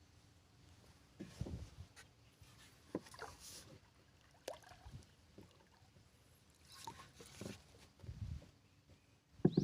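Small boat on the water: scattered knocks and low thumps against the hull, with a few brief bird calls and a sharper knock near the end.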